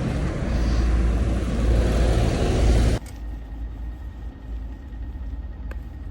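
Wind buffeting the microphone, a loud, gusty rush heavy in the low end. It cuts off abruptly about three seconds in, and a quieter low rumble follows.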